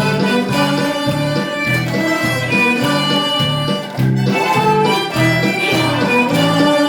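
Instrumental music from a harmonica performance with backing accompaniment: sustained melody notes over a regular bass line.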